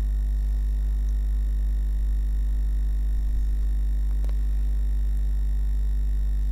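Steady low electrical mains hum, with fainter higher hum tones stacked evenly above it; a faint click about four seconds in.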